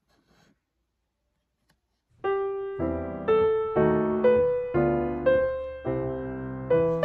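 Near silence, then slow, gentle piano music begins about two seconds in, with a note or chord struck roughly every half second and left to ring.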